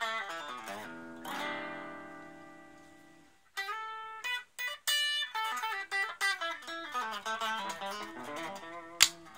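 Electric guitar played through a Raizin "60s Vintage Tweed" effects pedal: a short phrase, then a chord left to ring out and fade, then a run of quick picked single notes and licks. A sharp click sounds near the end.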